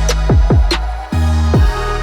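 Electronic background music with a heavy beat: deep bass drum hits that drop in pitch, sharp percussion strikes above them, and a brief drop-out about a second in.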